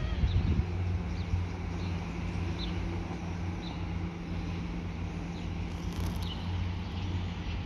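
Small birds chirping in short calls about once a second over a steady low mechanical hum.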